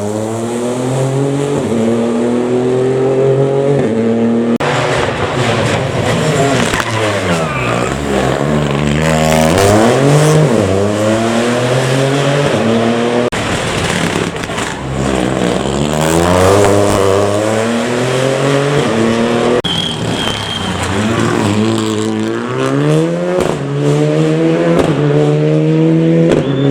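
Rally car engines revving hard through the gears on a special stage. The pitch repeatedly climbs and drops back with each gear change and as the cars pass.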